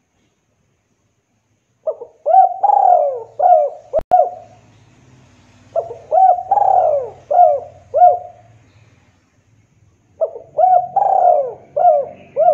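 Spotted dove cooing: three phrases of about five coos each, starting about two, six and ten seconds in, each with one longer, falling note in the middle. A single brief click about four seconds in.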